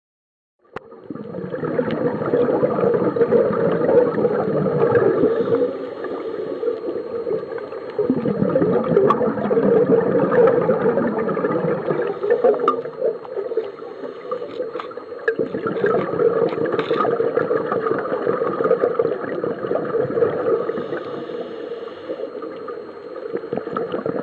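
Muffled underwater bubbling and water rush picked up by a camera below the surface, starting abruptly just under a second in. It swells and eases in rounds a few seconds long, typical of a scuba diver's regulator exhaust bubbles.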